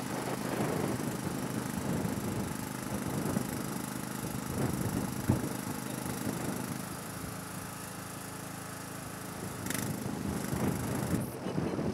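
An engine running steadily with a low, even hum over general work-site and street noise. The hum fades away about seven seconds in, and a short burst of noise comes near the end.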